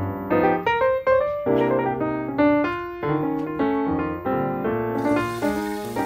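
Background piano music playing a lively run of notes. About five seconds in, a steady sizzling hiss starts underneath as broccoli florets go into hot oil in a wok.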